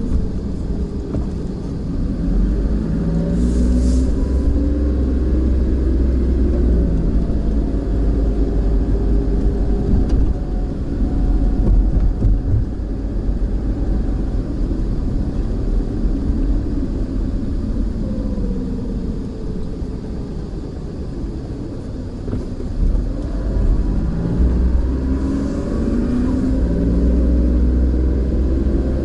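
A car driving at low speed, heard from inside the cabin: a steady low rumble of engine and road noise. The engine pitch rises as the car speeds up near the start and again a few seconds before the end, and falls as it eases off in between.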